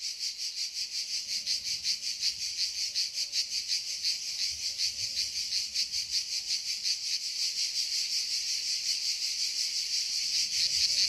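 Cicadas singing in chorus: a dense, high buzz made of rapid even pulses, growing a little louder near the end.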